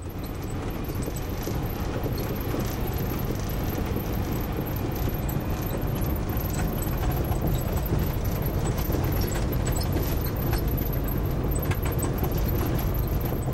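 A vehicle driving slowly over a rough dirt road, heard from inside the cab: steady engine and road rumble with light rattling of loose parts in the cabin.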